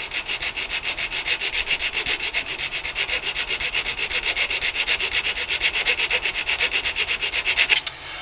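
Hand file scraping in rapid, even back-and-forth strokes across the cut end of a thin aluminium flagpole tube clamped in a vise, levelling the edge flat. The strokes stop shortly before the end.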